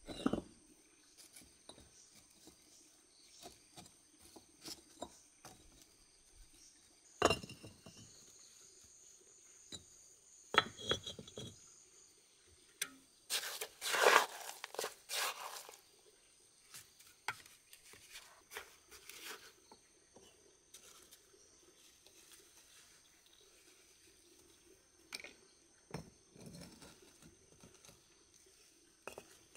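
Hollow fired clay bricks being set in mortar: scattered clinks, knocks and scrapes of brick against brick, busiest about halfway through.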